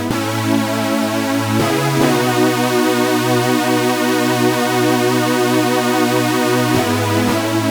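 Roland JD-800 software synthesizer playing a factory patch: sustained chords with a slight waver over held bass notes, changing chord about one and a half and two seconds in and again near the end.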